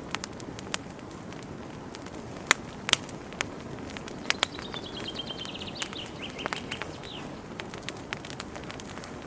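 Campfire crackling with scattered sharp pops over a soft steady hiss, the loudest two pops about two and a half and three seconds in. Midway, a bird sings a rapid trill that falls slowly in pitch for about three seconds.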